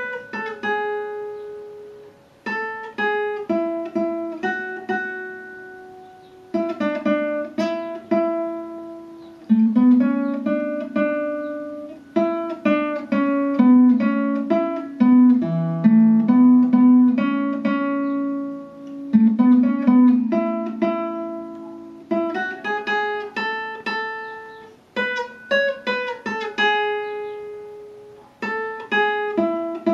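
Yamaha C40 nylon-string classical guitar with a capo, played fingerstyle: a melody of single plucked notes over picked bass notes, each note ringing out and fading, in phrases with short pauses between them.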